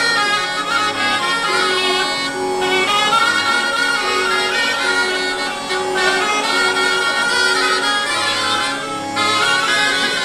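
Southern Italian zampogna bagpipe, ciaramella shawm and organetto button accordion playing a folk tune together over a steady drone, with a lower note pulsing about twice a second for much of the tune.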